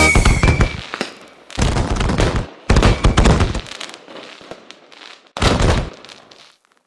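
Fireworks exploding: three loud bursts, about a second and a half, three and five and a half seconds in, each followed by a fading crackle. The last note of a band's brass fades out at the very start.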